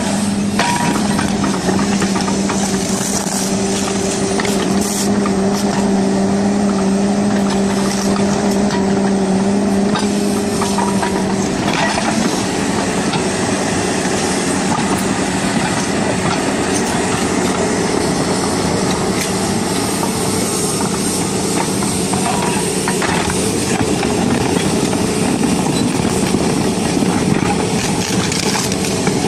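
Large crawler excavator's diesel engine running hard under load while its single-shank ripper tooth tears into rock, with occasional knocks. A steady low hum runs through roughly the first eleven seconds, then drops away while the machine noise carries on.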